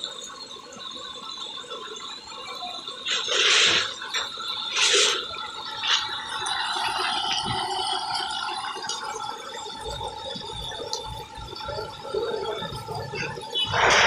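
Chicken pieces deep-frying in hot oil in a large wok, the oil sizzling steadily, with about three louder surges of sizzle.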